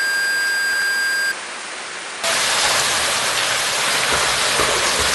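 TV-static hiss with a steady electronic beep, which cuts off about a second and a half in. About two seconds in it gives way to a steady rushing hiss of water on a swimming pool's surface.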